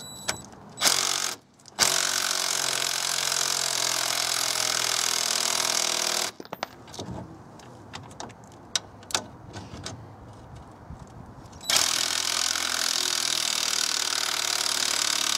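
Cordless impact gun running on the front suspension bolts: a short burst about a second in, then two long runs of four to five seconds each, with small knocks between them. Its battery is running low, by the owner's account.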